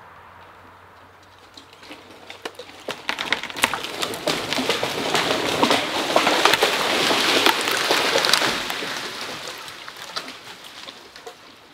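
The cut-off top of a dead conifer falling through neighbouring trees: a long run of crackling and snapping branches that builds from about two seconds in, is loudest in the middle and dies away near the end.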